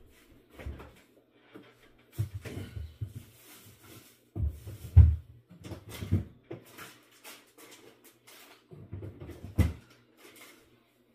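Refrigerator opened and rummaged through, with containers knocking as they are moved about. It comes as a string of irregular knocks and thumps, the loudest about five seconds in.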